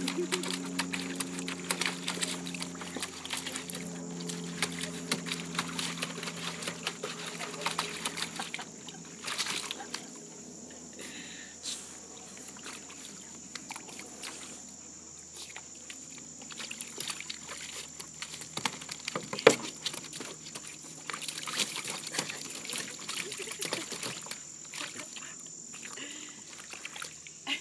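A puppy paddling and scrambling through shallow water in a plastic kiddie pool, making small irregular splashes and sloshes throughout. A steady low hum fades out over the first several seconds, and insects buzz steadily in the background.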